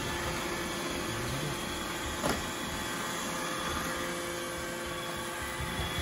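iRobot Roomba 960 robot vacuum running: a steady whir with faint whining tones, and one short knock about two seconds in.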